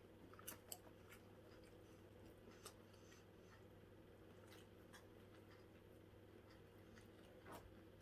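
Near silence: a person quietly chewing a mouthful of microwave cheeseburger, with a few faint clicks scattered through it, over a low steady hum.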